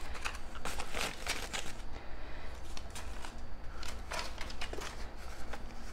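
Paper banknotes being handled: bills rustling and flicking as they are pulled from a cash tray and shuffled in the hand, an irregular string of short, crisp rustles.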